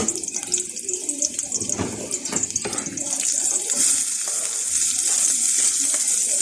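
Garlic and onions sautéing in hot oil in a pan: a steady sizzle that grows louder about three seconds in, with a few knocks in the first half.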